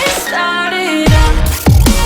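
Electronic dance music in a dubstep style: a thinned-out synth passage without bass, then about a second in a heavy bass drop with falling-pitch bass hits.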